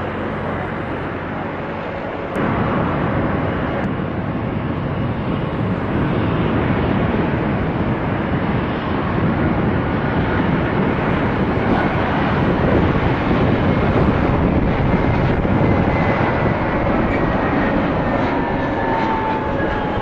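A distant jet airliner's engines on its takeoff roll, cut about two seconds in to the louder, steady engine noise of an Airbus A320-232 with IAE V2500 engines on final approach and touchdown. Near the end an engine whine falls in pitch as the aircraft passes.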